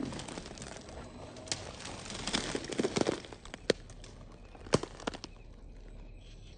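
Scale RC crawler's tyres crunching and grinding over loose stones and rock as it climbs, loudest around three seconds in. A few sharp clicks come from stones knocked loose or lugs striking rock, the sharpest a little before five seconds in.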